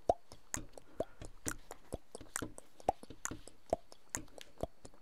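Steady, evenly spaced ticking, about two ticks a second, some ticks carrying a short low note.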